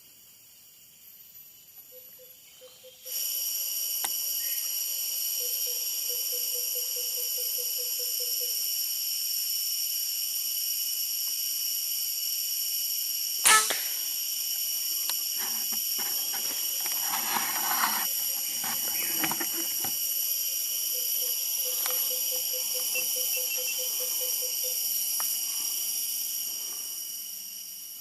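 Cicadas start up about three seconds in, a loud steady high-pitched drone that holds almost to the end. About halfway through, a single sharp crack, a shot from the Semar Neo Z PCP air rifle, is the loudest sound, followed by a few seconds of rustling. A faint low rapid trill is heard twice.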